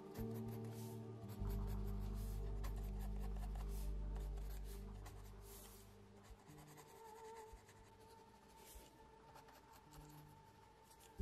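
Mechanical pencil scratching short, quick sketching strokes on sketchbook paper, many strokes in a row.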